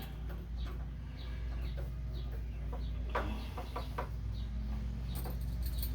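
Chickens clucking in short, repeated calls over a steady low hum.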